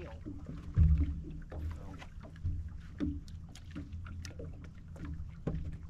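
Knocks and clicks of handling on a fishing boat, the loudest a sharp thump about a second in, over a steady low hum.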